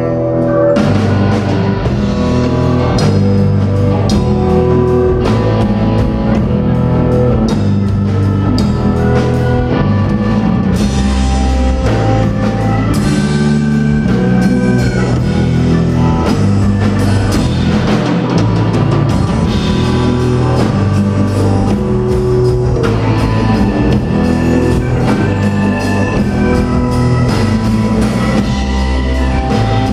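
Rock band playing, with a drum kit keeping a steady beat under guitar and other instruments; the drums come in about a second in.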